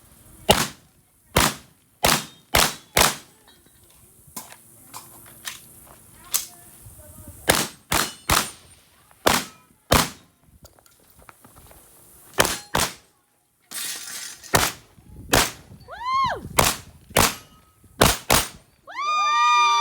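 Shotgun fired repeatedly during a timed match stage: about twenty sharp shots in uneven runs with short pauses between them.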